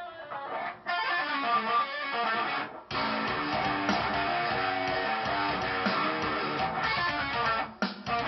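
Electric guitar playing a heavy-metal riff of many quick picked notes. It breaks off briefly about three seconds in and again near the end.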